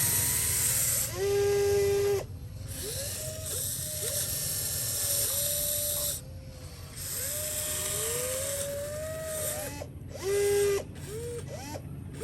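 Small geared electric motors whining in short stop-start runs, their pitch sliding up as they spin up and cutting off abruptly. The loudest, steadiest runs come about a second in and again about ten seconds in.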